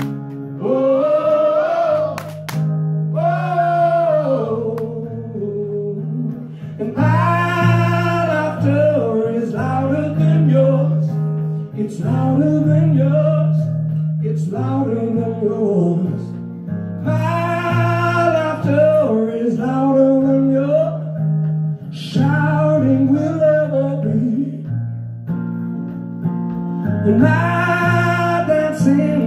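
Live male voice singing long wordless 'whoa' lines over a strummed acoustic guitar.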